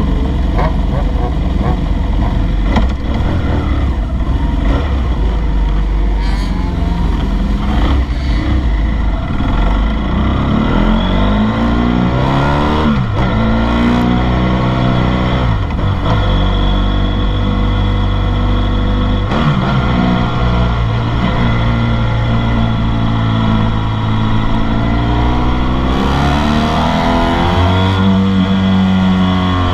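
Motorcycle engine heard from the bike itself, pulling away onto the track and accelerating. Its pitch climbs and then drops sharply at each gear change, several times in a row.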